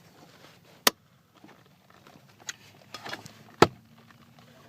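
A few sharp clicks and knocks as a new heater core is worked into its plastic housing in a 2003 Toyota Camry's dash. There is one knock about a second in, lighter taps after it, and the loudest knock near the end as the core seats.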